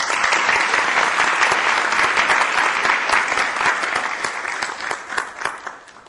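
An audience applauding: many hands clapping together, starting all at once and dying away near the end.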